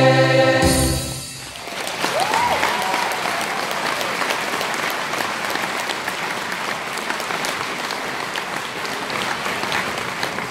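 A large choir's held final chord ends about a second in, and steady audience applause follows.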